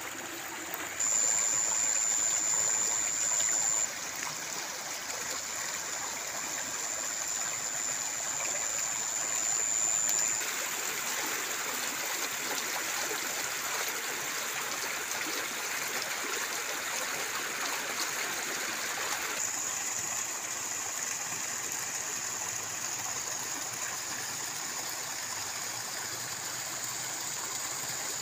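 Water running steadily through a muddy irrigation channel and pouring from a pipe into a flooded paddy, a continuous rushing. A thin, steady high-pitched whine runs over it at times, loudest in the first few seconds.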